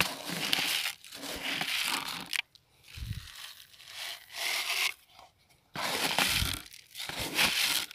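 White fertilizer granules poured from a cut plastic bottle onto compost, a rattling, rustling pour in several spells along with crinkling of the plastic.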